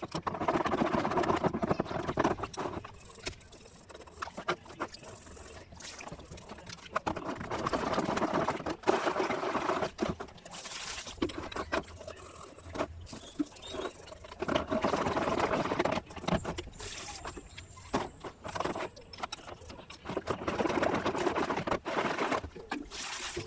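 Toothbrush scrubbing a painted metal part in a plastic basin of caustic soda solution, with the liquid sloshing and splashing, in bursts of a few seconds with quieter stretches between. The scrubbing is stripping the paint off in the caustic soda.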